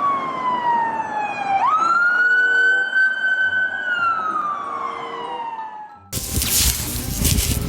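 A police car siren wailing in long, slow glides. It falls, snaps back up about one and a half seconds in, holds, then slides down again. A little after six seconds it cuts off suddenly and a louder, busy, noisy sound takes over.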